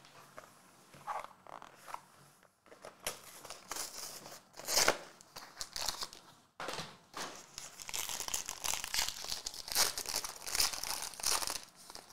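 Trading-card pack being opened by hand: the cardboard pack box is pulled open and the foil wrapper inside is torn and crinkled. There is a loud rip about five seconds in, followed by several seconds of dense foil crinkling.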